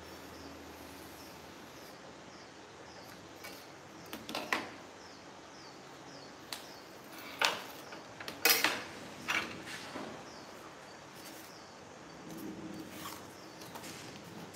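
Sheets of cardboard being handled and shifted on a tiled floor, with a few sharp knocks and clatters as pieces and a metal ruler are moved and set down; the loudest come about eight and a half seconds in.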